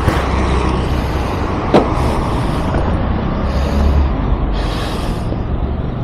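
Road traffic passing close by: a steady low engine rumble with the noise of passing vehicles swelling and fading, and one sharp click about two seconds in.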